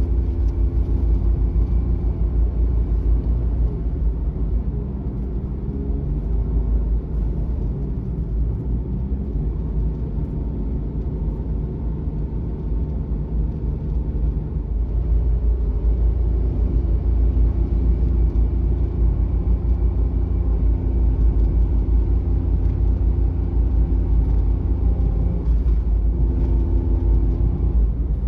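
Suzuki Every kei van's 660 cc three-cylinder engine and road noise heard from inside the cabin while driving: a steady low rumble, with the engine note dropping and picking up again a few times as the van slows and speeds up.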